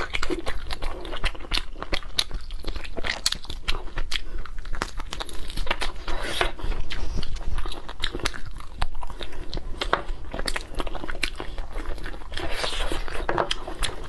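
A person chewing and biting glazed pork rib meat close to a clip-on microphone, with many quick, irregular mouth clicks.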